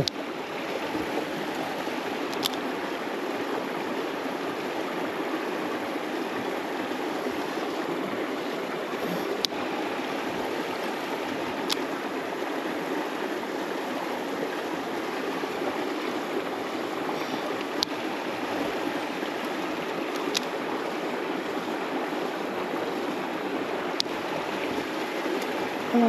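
Small mountain stream running steadily, with six short, sharp clicks spaced a few seconds apart.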